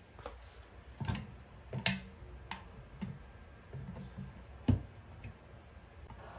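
Light plastic clicks and knocks as electric water-jug dispenser pumps are lifted off and seated onto the necks of water jugs, about eight in all. The sharpest knock comes about three-quarters of the way through.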